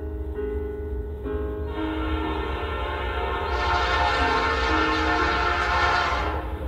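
Air horn of an approaching CP AC44CW freight locomotive sounding a long chord of several tones. It grows louder and drops away near the end, over a steady low rumble.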